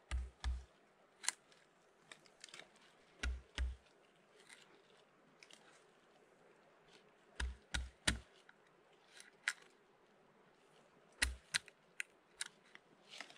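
A knife chopping and cutting at vegetation: groups of two or three dull thuds every few seconds, with sharper snaps and clicks between them.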